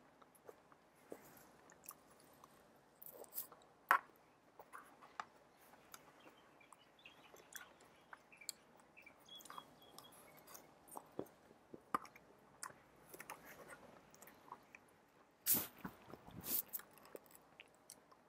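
Close-up chewing of leafy salad greens, with soft crunching and small wet clicks throughout. A sharp knock about four seconds in and a couple of louder knocks near the end stand out above the chewing.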